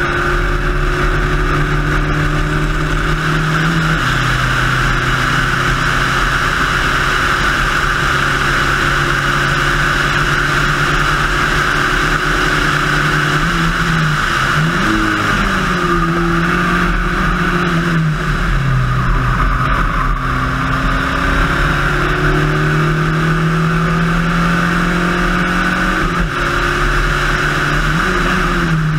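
Spec Racer Ford's four-cylinder engine at racing speed, heard onboard. It holds a steady pitch for long stretches, dips and blips in the middle under braking and gear changes, then climbs steadily and drops near the end with a gear change.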